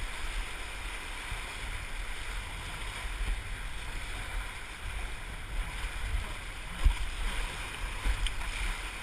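Whitewater rapid rushing and splashing around a canoe, a steady roar with low rumble on the microphone. One sharp thump about seven seconds in.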